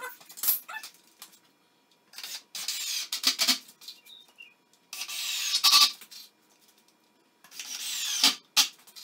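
Cordless drill driving 2.5-inch wood screws into 2x4 lumber, in three runs of about a second each, the motor's pitch rising during each run.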